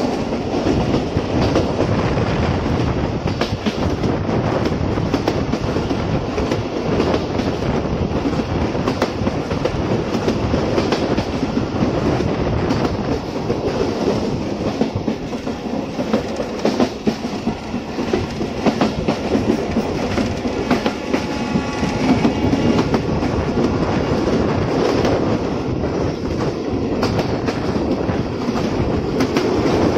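Bangladesh Railway passenger train, the Mohanonda Express, running at speed, heard from an open coach door: a steady rumble with frequent clicks of the wheels over rail joints.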